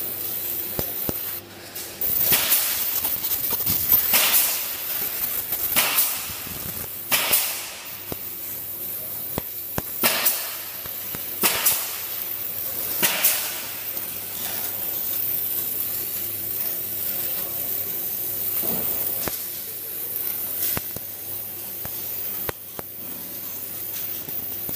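Fiber laser machine cutting thin silver sheet: a string of short hissing bursts over a steady machine hum through the first half, settling to a steadier, quieter hiss near the end.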